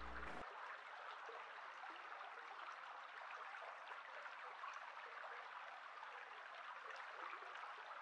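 Shallow stream flowing over pebbles: a faint, steady babble of running water. A low, held musical tone cuts off about half a second in.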